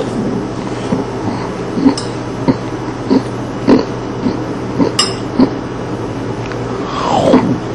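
A man making wet mouth noises in imitation of someone chewing cereal: short rhythmic smacks and grunts about two a second, with a sharp click about five seconds in and a falling vocal sweep near the end.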